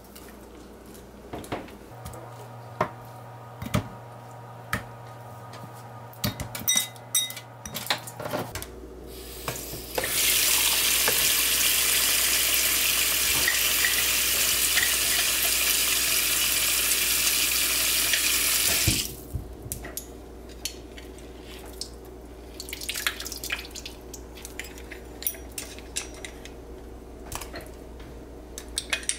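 Kitchen tap running into a glass bowl of raw chicken pieces in a stainless steel sink: a steady rush of water that starts about ten seconds in and cuts off about nine seconds later. Light clicks and knocks come before and after it.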